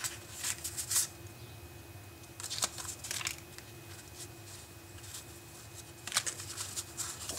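Paper cards and printed sheets being shuffled and shifted by hand, giving short rustles just after the start, about two and a half seconds in, and again about six seconds in. A faint steady hum runs underneath.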